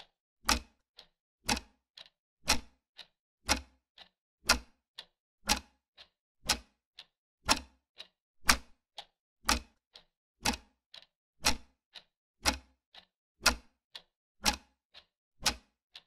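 Clock ticking sound effect: a steady tick-tock of two ticks a second, a louder tick on each whole second and a softer one between.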